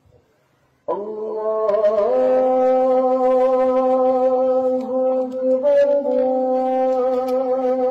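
A man's voice calling the azan, the Islamic call to prayer: after a short pause it comes in about a second in, slides up in pitch, then holds one long, steady note.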